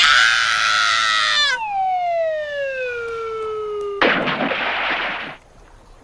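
Cartoon falling sound effect: a long tone gliding steadily down in pitch for about two and a half seconds, then a sudden crash about four seconds in.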